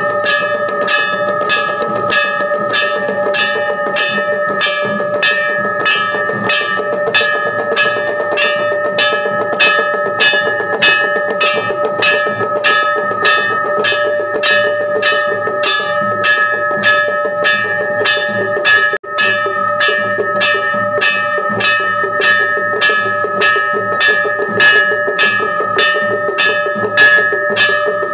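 Temple bells rung rapidly and continuously for an aarti, about two strikes a second, with the bell tones ringing on between strokes.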